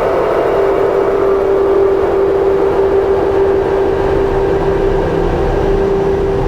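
Ambient electronic drone from a Make Noise Strega synthesizer and looped drone layers: a single steady tone held over a dense, rumbling low bed that shifts slowly.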